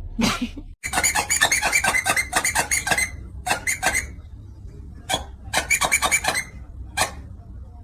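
Rapid runs of short, high squeaks, several a second: one long run about a second in, a shorter one at about three and a half seconds, another around six seconds, and a single squeak near the end.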